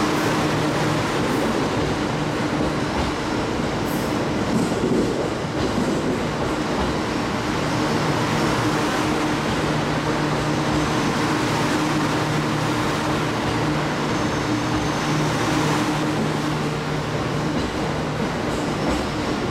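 Cassiopeia sleeper train coaches rolling past along the platform, pushed from the rear by the locomotive as an empty-stock move: a steady rumble of wheels on rail with a low steady hum.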